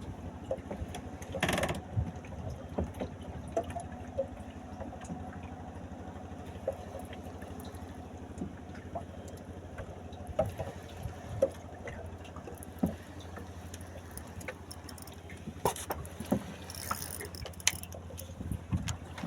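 Small fishing boat's engine running steadily with an even low pulse, with scattered short knocks and clicks on the boat.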